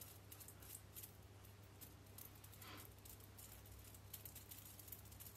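Near silence: room tone with a steady low hum and a few faint small clicks.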